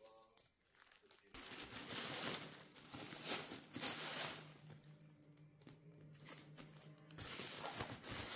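Rustling handling noises over background music, with a steady low hum that starts about a second in and cuts off suddenly near the end.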